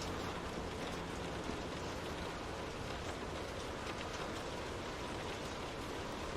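Steady rain falling on a window pane: an even, dense hiss with scattered faint drop ticks.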